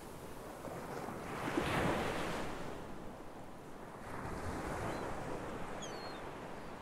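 Ocean surf washing up a beach: a rushing wash that swells twice, loudest about two seconds in and again a little after four seconds.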